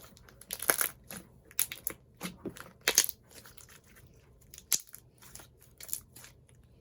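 Thick, crunchy slime being pressed and worked by hand, giving irregular crisp crackles and pops, the loudest about a second in and again about three seconds in.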